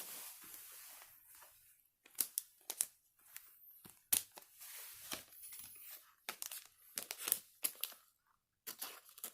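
Foil Pokémon TCG booster pack wrapper being torn open and crinkled by hand: irregular crackles and short rustles, with a brief pause near the end.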